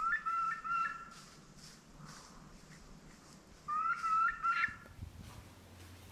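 Wild turkey hen yelping in two short series of notes about four seconds apart: a hen separated from her flock, calling to find it.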